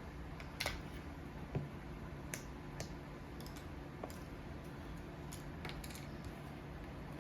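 Scattered light clicks and taps of a spice container being opened and handled, about a dozen sharp ticks at irregular spacing over a faint low steady hum.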